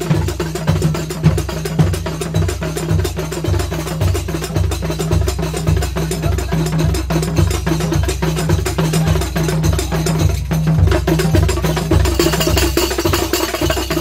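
Loud procession music with a steady, heavy bass beat about twice a second and wood-block-like percussion clacking over it.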